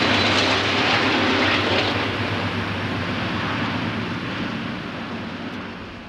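Conrail diesel-electric freight locomotives running away from the listener. Their loud, steady engine roar fades gradually as they pass out of sight.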